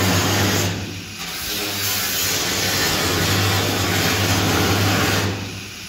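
Corded angle grinder with a thin cut-off disc cutting rusty corrugated sheet steel: a steady motor hum under a harsh hiss. The sound drops briefly about a second in and again near the end.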